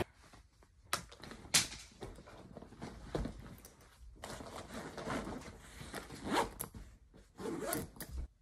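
A backpack being handled and zipped: fabric rustling and zipper runs, with two sharp clicks a second or so in.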